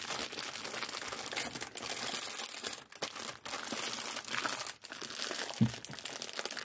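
Clear plastic bag crinkling and rustling as it is wrapped and rolled around a rolled diamond-painting canvas and its packets of diamonds, with a single thump about two-thirds of the way through.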